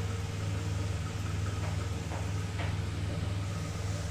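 Steady low electrical hum of a kitchen exhaust fan, with the faint even hiss of a gas burner flame beneath it and a few soft ticks.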